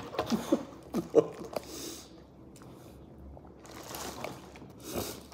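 A dog licking its lips and snuffling, with wet mouth sounds and short sniffs in the second half.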